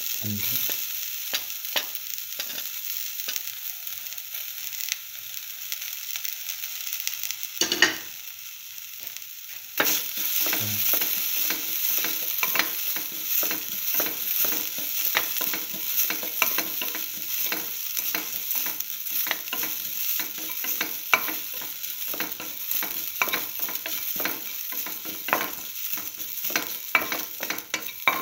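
Chopped ginger, sliced shallots and mustard seeds sizzling in oil in a steel pan while being stirred, with many small scrapes and ticks. There is one sharp knock about eight seconds in. From about ten seconds in the sizzling and stirring grow louder.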